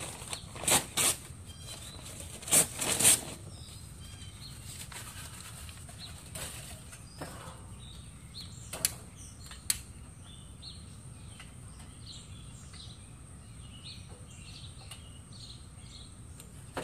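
Sheets of paper being crumpled and stuffed into a charcoal chimney starter: four loud rustling bursts in the first three seconds. After that the sound drops to a quieter outdoor background, with two sharp clicks about nine seconds in.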